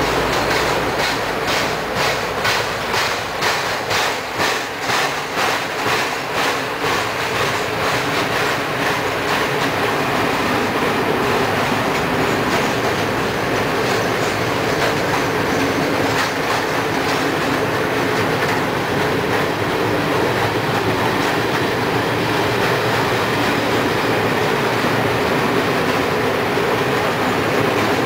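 Train passing close by. Its wheels clatter rhythmically over rail joints for the first several seconds, then give way to a steady rolling rumble.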